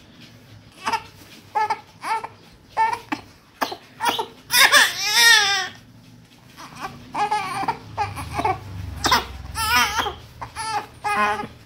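Newborn baby crying in short repeated wails, with one longer, louder wavering cry about halfway through, while its face and head are being massaged.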